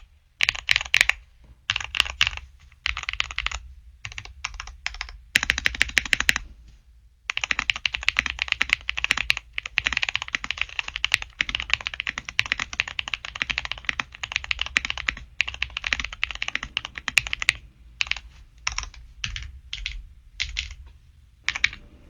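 Fast typing on a custom mechanical keyboard fitted with Gateron Quinn switches: clacks in quick runs, short bursts with pauses at first, then a long unbroken stretch of typing, then scattered bursts again near the end.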